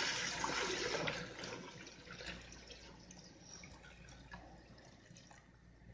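Chicken broth pouring in a stream into a stainless steel pot of fried masala, splashing and gurgling. Loudest in the first second, then tapering off as the pour slows.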